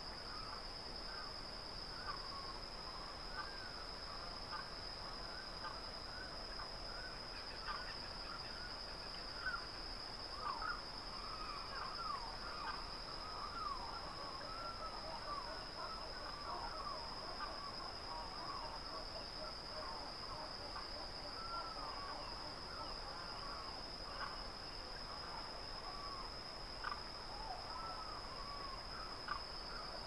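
Rural outdoor ambience: a steady, high-pitched insect drone with many short bird chirps and whistles over it, busiest around the middle.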